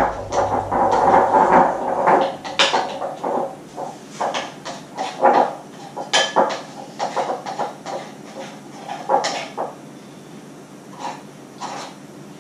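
Kitchen clatter: irregular knocks, taps and clinks of utensils, bowls and baking things being handled, busiest in the first few seconds.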